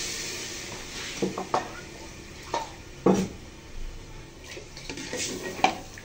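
A plastic bowl and hands knocking and clinking against a steel cooking pot, a string of about ten light, separate knocks, the loudest about three seconds in.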